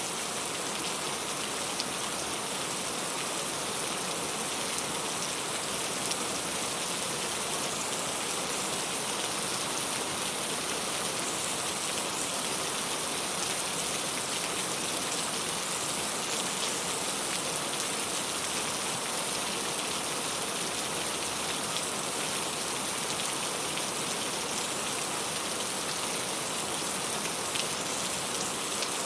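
Steady rain falling, a dense even hiss with the patter of individual drops striking a surface.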